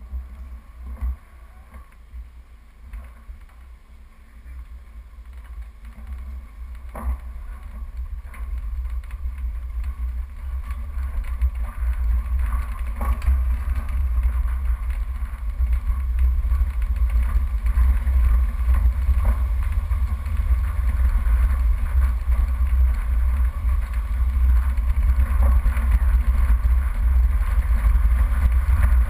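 Off-road 4x4 driving on a rough dirt track, heard from its bonnet: a low engine and road rumble that grows steadily louder as it picks up speed, with a few sharp knocks from the bumpy ground.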